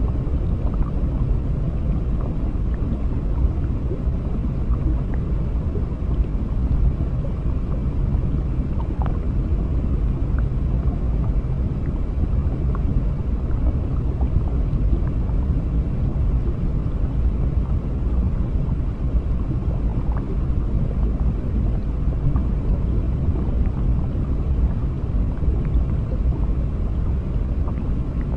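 Underwater ambience: a steady, deep low rumble of moving water with a softer hiss above it, and a few faint short blips like small bubbles now and then.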